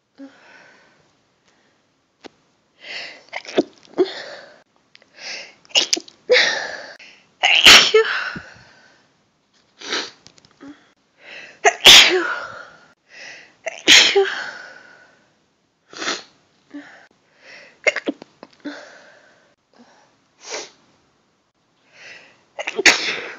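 A woman sneezing again and again in a long run of sneezes, some loud and sharp, others softer, with short pauses between them; the loudest come about 8, 12 and 14 seconds in and again near the end.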